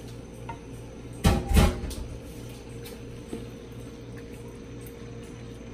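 Wooden spoon stirring raw chicken pieces in a square pan, with a couple of loud knocks of the spoon against the pan about a second in, over a steady low hum.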